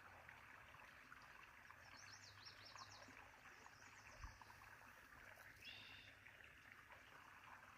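Faint running water flowing steadily, with songbirds singing over it: a quick high trill about two seconds in and a short whistled note near six seconds.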